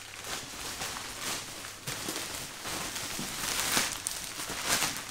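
Thin grey plastic postal bag crinkling and rustling as it is handled and pulled open by hand, with irregular crackles.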